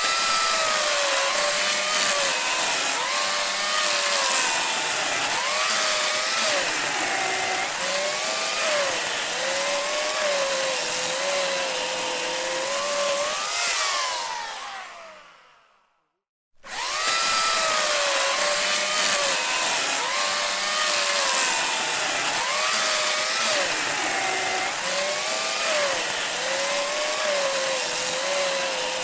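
Handheld electric saw cutting wood: the motor's whine sags and recovers in pitch as the blade bites. About halfway through it is switched off and winds down with a falling pitch to a second of silence, then starts up again and cuts on.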